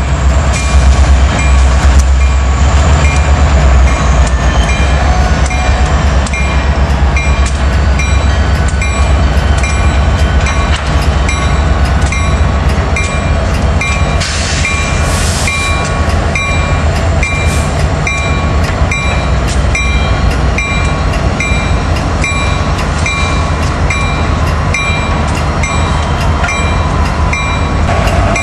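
EMD SD70ACE diesel-electric locomotive, a Union Pacific heritage unit, rolling slowly past with its 16-cylinder two-stroke diesel engine rumbling. Its bell rings steadily at about one strike a second, and the passenger cars behind it rumble on the rails.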